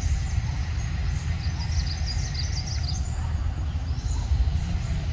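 Outdoor ambience: a steady low rumble with birds chirping high above it, a quick flurry of chirps in the middle and a few more near the end.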